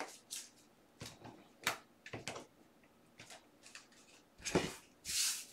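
Trading cards in plastic holders being handled and sorted on a table: scattered light clicks and taps, a louder knock about four and a half seconds in, and a brief sliding rustle near the end.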